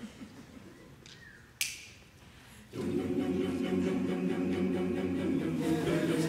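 A large mixed choir begins singing a cappella about three seconds in, holding long sustained chords. Before it comes in, only low background noise with a single sharp click.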